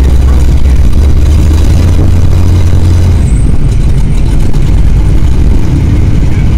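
Engine of a lifted 4x4 pickup truck running as it crawls slowly through deep mud. A steady low drone drops away about three seconds in.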